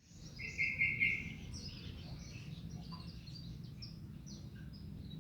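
Domestic canary singing: a loud, fast trill for about the first second, then a run of varied high chirps and twitters, over a steady low hum.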